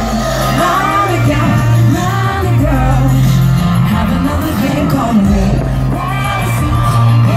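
Pop song with a woman singing a bending melody over a steady bass line.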